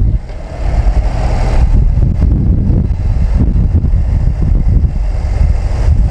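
Motorcycle engine running, with heavy low rumbling wind buffeting on the microphone as it rides; the sound dips briefly just after the start.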